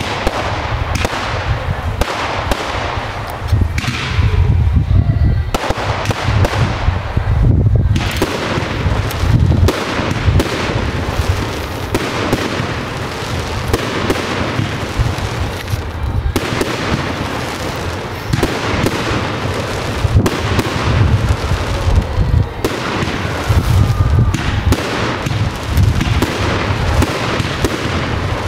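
Professional fireworks display: a continuous, rapid barrage of firework shots and aerial bursts, the reports coming thick and fast with no pauses.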